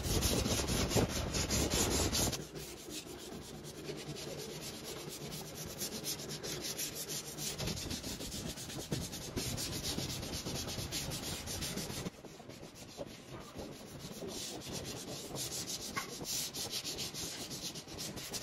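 A hand rubs a small pad back and forth over a wooden tabletop and side panel, a fast, dense scratchy scrubbing. It is loudest for the first two seconds and eases off briefly about twelve seconds in.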